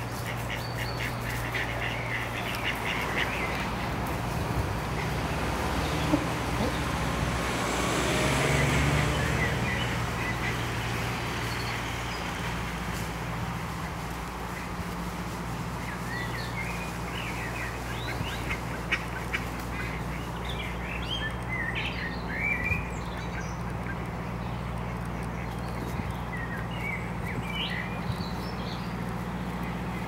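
Mallard ducks quacking in short bursts over a steady low background hum. A broad swell of noise rises and fades about a quarter of the way in.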